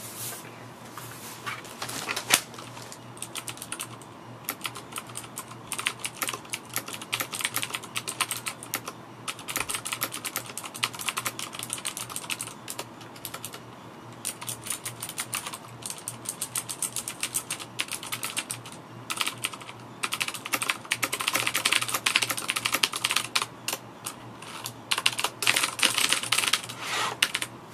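Typing on a Filco Majestouch 2 mechanical keyboard with Cherry MX Blue switches: rapid runs of sharp clicking keystrokes with short pauses, and one louder knock about two seconds in.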